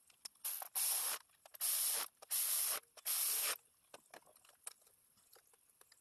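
Four short bursts of hissing, each half a second to a second long, with a few faint clicks between them.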